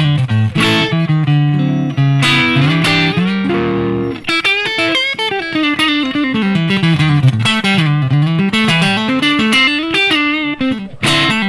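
Squier Affinity Stratocaster electric guitar played through a Yamaha THR10X amp set to a crunch tone. It plays held chords for about the first four seconds, then fast single-note runs that climb and fall.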